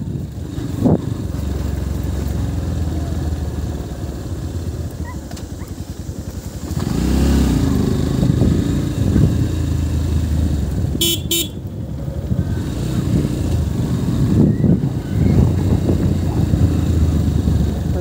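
Motorcycle engine running steadily while riding, louder from about seven seconds in. A horn gives two short beeps near the middle.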